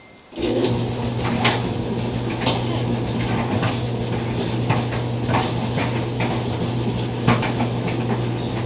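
A household appliance starts just after a beep and runs with a loud steady hum, with irregular clinks and clacks over it.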